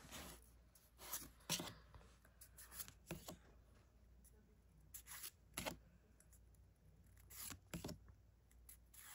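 Pokémon trading cards being flipped through one at a time from a freshly opened pack: faint, brief slides and flicks of card stock at irregular intervals.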